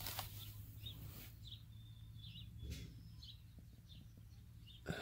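Faint bird chirps and calls, including one short held whistle, over quiet outdoor background with a few brief bursts of hiss.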